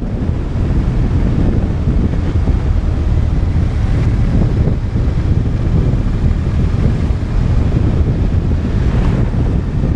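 Wind rushing over a helmet-mounted action camera's microphone on a moving motorcycle: a steady, loud low rumble.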